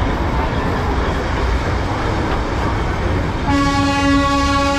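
Darjeeling Himalayan Railway toy train rumbling along its narrow-gauge track after pulling out of a station. About three and a half seconds in, the locomotive's horn sounds one long steady note.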